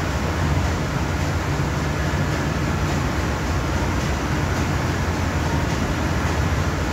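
12,740-horsepower MAN B&W two-stroke slow-speed marine diesel main engine running steadily: a deep, even drone under a broad mechanical din.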